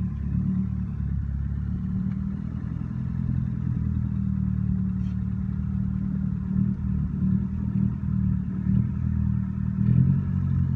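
A car engine running steadily at low revs, a low, even hum without revving, as the car creeps slowly forward.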